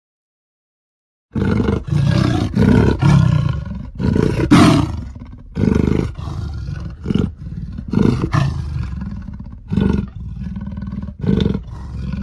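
Amur leopard calling: after about a second of silence, a long run of harsh, rough calls follows in quick succession, several starting each second, each with a sharp onset.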